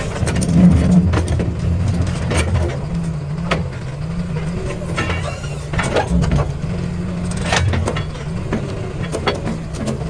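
Diesel excavator engine running under hydraulic load, its pitch rising and falling as the machine works, with repeated sharp knocks and clacks of the bucket against blasted rock being packed into a trench.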